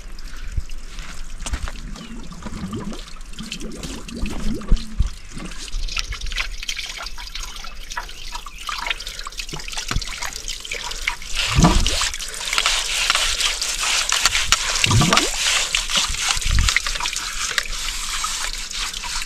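Water running and trickling over a concrete slab, with scattered knocks and scrapes of hands at work. The water is faint at first and grows louder about a third of the way in.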